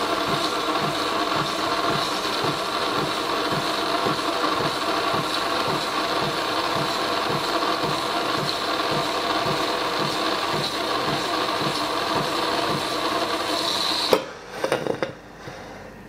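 DeLonghi PrimaDonna Soul bean-to-cup coffee machine frothing and dispensing milk through its LatteCrema milk system. It gives a steady mechanical hum with a hiss and a low pulse about two or three times a second, and cuts off suddenly near the end as the milk stage finishes.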